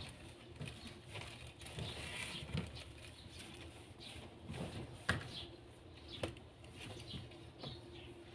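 Faint rustling and small clicks as newborn kittens nurse and shuffle against their mother on a towel and plastic sheet, with two sharper clicks about five and six seconds in, over a faint steady hum.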